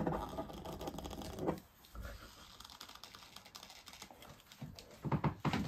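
Small clicks and rattles of a hand gripping and twisting the lid of a jar of salsa dip, with a cluster of sharper clicks near the end as the jar resists opening.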